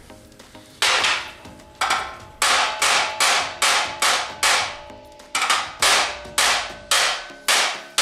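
A wooden-handled hammer striking the edge of a steel sheet-metal patch panel to hammer it flat: about fifteen sharp metallic blows, beginning about a second in and settling to a steady two or three a second, each ringing briefly.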